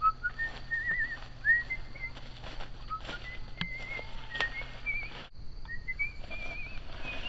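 Songbirds chirping and warbling in short, varied whistled phrases. The sound drops out for a moment about five seconds in, then the chirping resumes.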